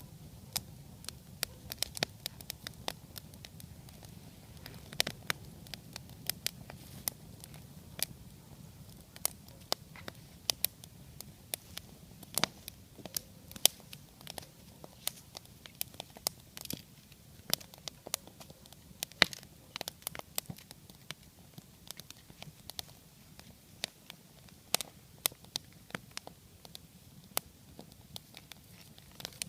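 Wood campfire burning, crackling with irregular sharp pops and snaps, several a second, over a low steady rumble.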